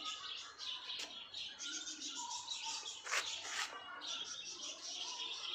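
Many small birds chirping continuously in a dense, high-pitched chatter, with a couple of sharp clicks about one and three seconds in.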